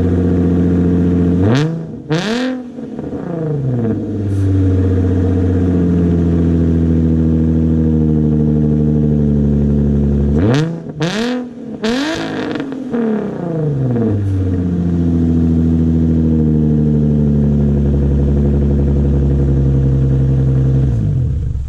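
Nissan V6 running through a freshly installed Tomei exhaust and ISR Y-pipe, loud and with a high-pitched edge. It holds a steady drone, and twice, about 2 and 11 seconds in, it revs, its pitch swinging up and back down.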